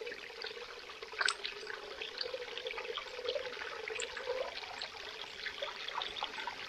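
Small forest stream trickling over stones: a steady babble dotted with many small irregular splashes.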